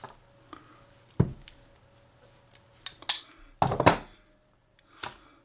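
Metal clinks and clatter of hand tools and small metal parts handled on a workbench while a rifle's bolt knob is being unscrewed. There is a low knock about a second in, then a rattling clatter, the loudest sound, around three to four seconds in, and a light click near the end.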